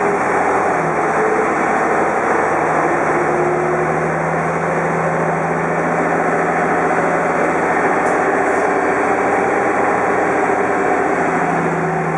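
Menarini 201/2 NU city bus heard from inside the passenger cabin while driving: steady engine drone and road noise with a low, even hum.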